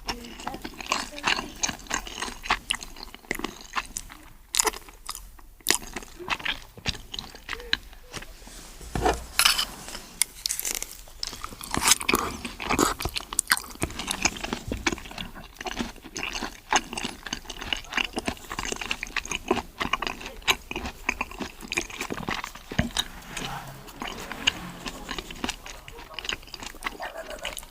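A person eating seafood close to the microphone: steady chewing and biting with many short, irregular crunches and clicks.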